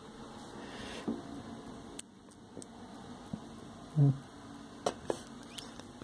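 A few faint clicks and taps over a low steady hum, with one dull thump about four seconds in.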